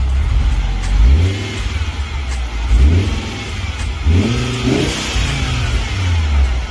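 Fiat Coupe 20VT's turbocharged 2.0 five-cylinder engine idling and being blipped, rising and falling in pitch about five times.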